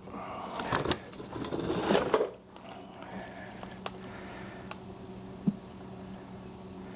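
Rough handling noise as the push mower is tipped up, stopping suddenly about two seconds in. It is followed by a faint, steady sound of gasoline draining from the fuel tank into a container, with a few small clicks.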